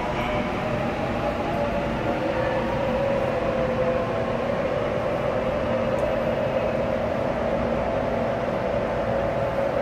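Subway train standing at the platform just after arriving: a steady hum with a held mid-pitched drone that shifts slightly in pitch.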